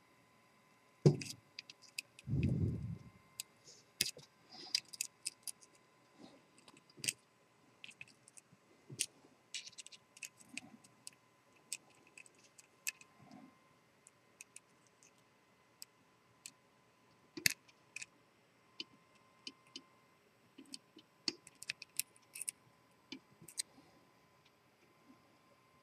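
Small scattered metallic clicks and ticks of a disc-detainer pick and tensioner turning the discs inside a three-disc Sargent & Greenleaf padlock. There is a sharper knock about a second in, followed by a brief low rustle of handling.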